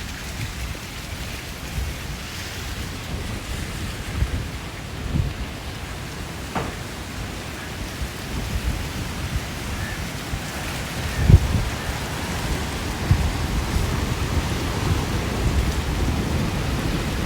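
Heavy rain falling steadily, with a loud low thump about eleven seconds in.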